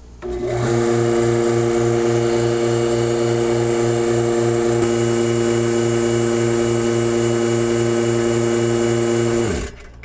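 Electric vacuum pump of a vacuum-bag press kicking on about a quarter second in and running steadily, a hum with a regular low pulsing, then shutting off and winding down with falling pitch near the end. It is pulling the bag back down to about 22 inches of mercury after air was let in, and it stops once that vacuum is reached.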